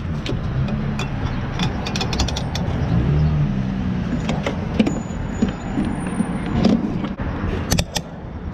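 Gas pump nozzle and car fuel cap being handled: clicks and clatter as the nozzle comes out of the filler neck and is hung back on the pump, then a quick run of clicks near the end as the fuel cap is screwed shut, over a low steady hum.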